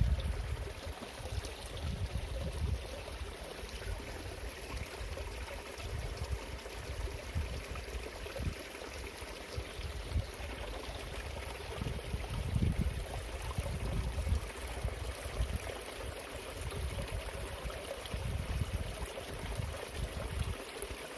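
Water flowing in a small ditch, a steady rushing, with irregular gusts of wind buffeting the microphone.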